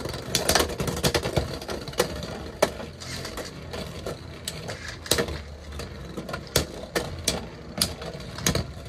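Two Beyblade X tops, Tyranno Beat 4-80 Rush and Dran Sword 3-60 Low Flat, spinning in a clear plastic stadium: a steady whirring grind of their tips on the floor with many sharp, irregular plastic clacks.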